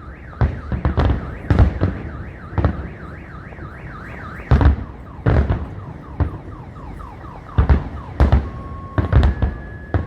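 Fireworks bursting overhead in a rapid, irregular run of bangs. A car alarm sounds alongside them, first as a fast repeating falling chirp, then as alternating steady beeps near the end.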